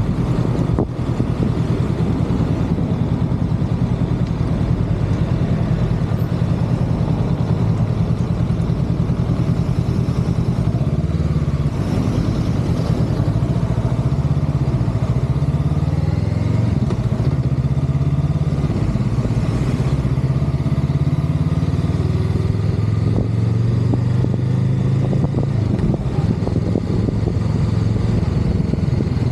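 Honda Rebel 500 (CMX500) parallel-twin engine running under way, its pitch rising and falling with the throttle through the middle stretch.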